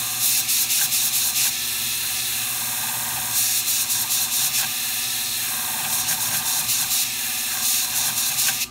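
Flat hone scissor sharpening machine running with a steady hum while a shear blade is ground back and forth on its 80-grit abrasive pad: about four rasping passes of a second or so each. The grind is bringing up a new 45-degree convex bevel on the blade.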